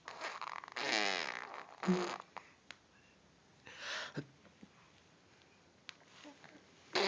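A person making silly vocal noises on request: a wavering squeal about a second in, a short low grunt near two seconds, and a breathy blowing sound around four seconds.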